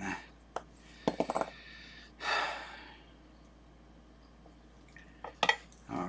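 Small metallic clicks and taps from handling a banana plug and microphone cable, with a quick run of clicks about a second in and a few more near the end. A breathy sigh about two seconds in.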